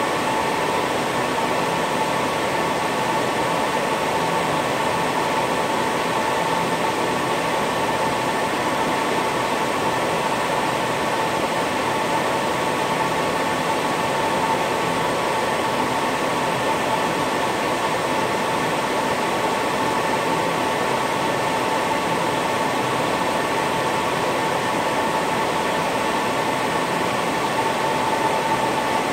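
EMC Isilon storage node booting up, its cooling fans running steadily: a rush of air with a steady high whine on top.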